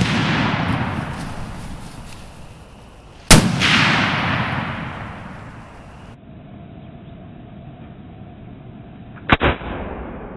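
Browning BAR .243 semi-automatic rifle shots. The tail of one report is still rolling away at the start, a second loud shot comes about three seconds in with its echo fading over two to three seconds, and near the end there are two sharp cracks close together in a duller, muffled recording.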